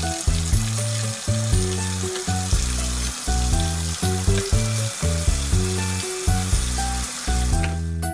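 Water running from a small toy sink faucet and splashing onto a plastic funnel and spoon in the plastic basin, a steady hiss that stops just before the end. Children's background music plays under it.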